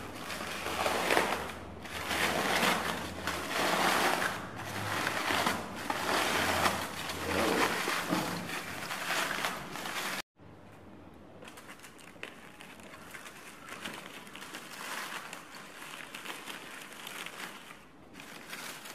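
Aluminium foil crinkling and tearing as hands peel it off a baked fish parcel. About ten seconds in the sound drops suddenly, and softer rustling follows as the charred banana-leaf wrapping is pulled open.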